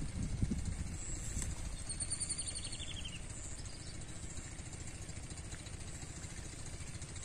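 Steady low outdoor rumble, like wind on the microphone or a distant motor, with a short high chirping trill about two seconds in.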